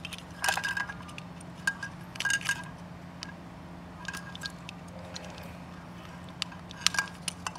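Small plastic clicks and taps as hands handle a red plastic lotus-shaped electronic candle and press its LED flame piece back into place. There are a few scattered clicks and a quick cluster near the end, over a steady low hum.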